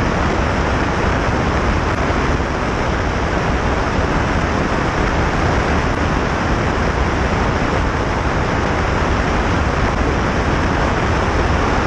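Airflow rushing over the microphone of a camera mounted outside a light high-wing aircraft in flight: a steady, even roar with a heavy low rumble and no clear engine note.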